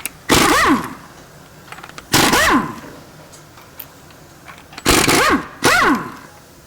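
Pneumatic impact wrench spinning lug nuts off a wheel in four short bursts, each whining up and back down, one nut after another.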